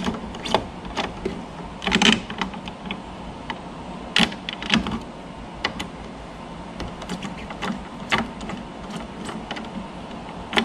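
Irregular metallic clicks and ticks from a hex-bit driver working the Allen-head screws out of a motorcycle fairing's chrome speaker grill trim, over a steady low hum.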